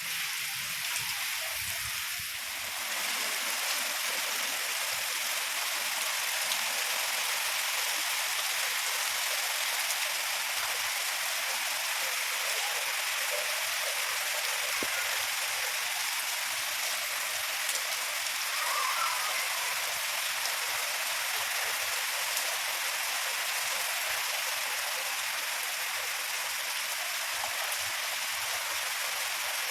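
Heavy rain falling steadily, an even, unbroken hiss of rainfall.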